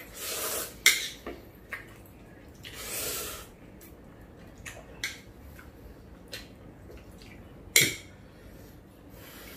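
Spicy instant noodles being slurped in two short hissy pulls, with chopsticks and a fork clicking against ceramic plates a number of times; the loudest clink comes near the end.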